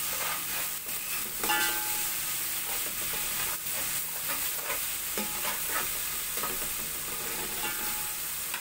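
A slotted metal spatula stirring and scraping a tomato-onion masala with spices in a metal pot, with repeated clinks of metal on metal, over a steady sizzle of frying in oil.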